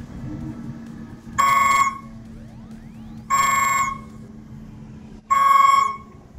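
Heavy machine's electronic warning alarm sounding three loud half-second beeps about two seconds apart, over a steady low hum.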